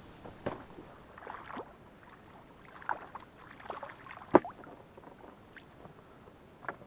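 Oars of a small rowboat dipping and pulling through the water: a series of splashes and knocks about a second apart, the loudest a sharp knock just past the middle.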